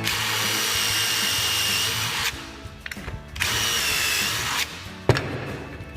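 Power drill with a 5 mm bit boring two pull holes into a wooden drawer front through a cabinet hardware jig: a steady whining run of about two seconds, a pause, then a second shorter run. A sharp click follows about five seconds in.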